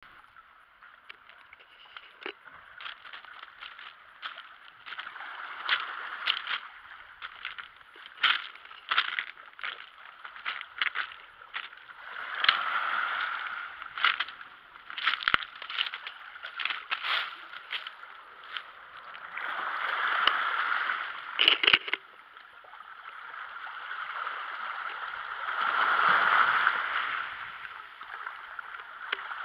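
Small sea waves lapping on a pebble shore: water sloshing and gurgling among the stones with many small clicks, swelling in three slow washes.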